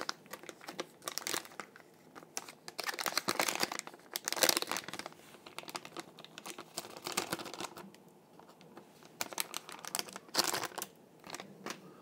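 Plastic packaging bag crinkling and rustling as it is handled and opened, in irregular crackly bursts that are busiest about three to four seconds in and again near the ten-second mark.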